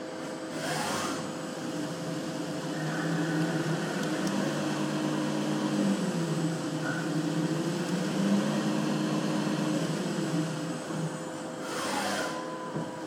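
CNC lathe running while turning a tube, a steady machine hum whose pitch drifts up and down through the middle, with a brief rushing surge about a second in and another near the end.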